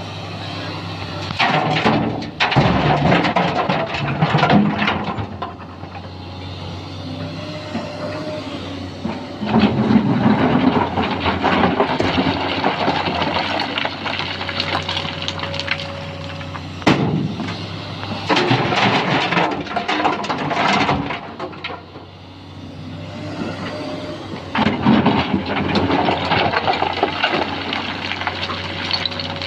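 Sany SY215C excavator's diesel engine running steadily while it loads rock: four times, loud rattling crashes of stones tipped into the dump truck's steel bed, each lasting a few seconds, with sharp knocks among them.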